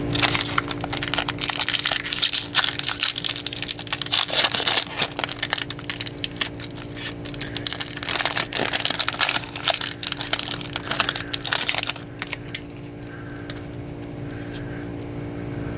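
Stack of glossy baseball trading cards being flipped through by hand: a quick, busy run of crisp clicks and scrapes of card against card that stops about three-quarters of the way through. A steady low hum runs underneath.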